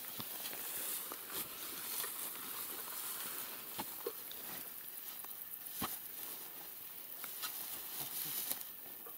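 A shovel digging into grassy soil at the base of a wooden post: irregular scrapes and knocks, with rustling of dry grass.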